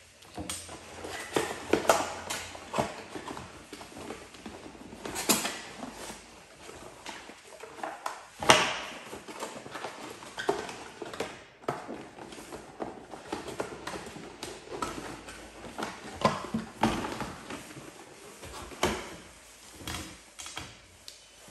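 Cardboard packaging and accessories being handled and set down on a glass tabletop: irregular knocks, taps and rustles, the sharpest knock about eight and a half seconds in.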